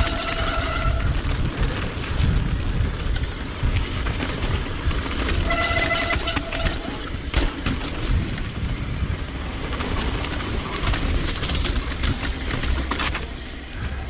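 Mountain bike brakes squealing in a shrill, pitched tone twice, each for about a second, once at the start and again about five and a half seconds in. Under it runs the constant rush and clatter of the bike over rough ground. The brakes are wet, which the rider blames for their complaining.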